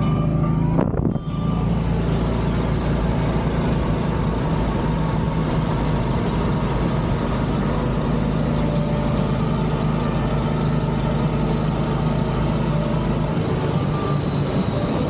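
Golf cart driving along a sand beach: steady motor and tyre noise with wind on the microphone. About a second in the sound briefly drops, and near the end the low rumble falls away.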